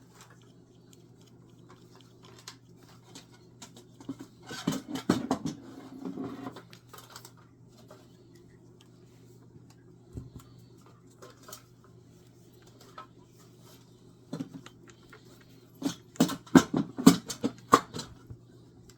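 Small hard objects, tools and parts being handled on a workbench, clinking and clattering in two bursts, about five seconds in and again near the end, with a few single clicks between, over a steady low hum.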